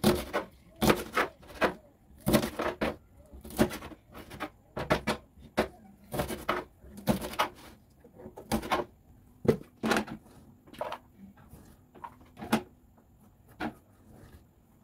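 Irregular knocks and clicks of kitchen food prep, several a second at first, thinning out and getting quieter near the end.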